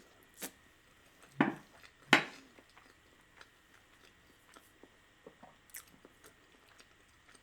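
Close-up eating sounds of a person chewing a mouthful of risotto. Two louder wet mouth sounds come about one and a half and two seconds in, followed by faint scattered mouth clicks.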